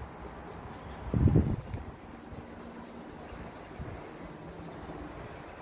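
Quiet outdoor background. About a second in there is a short low rush of air, like breath or a gust on the microphone. A few brief, faint high chirps come later.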